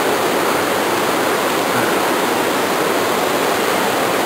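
Waterfall's falling water rushing steadily and loudly.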